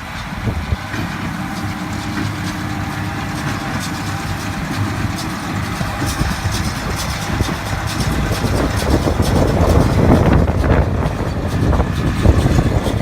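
Massey Ferguson tractor's diesel engine running as it works with a baler, a steady low drone that grows louder and rougher about two-thirds of the way through.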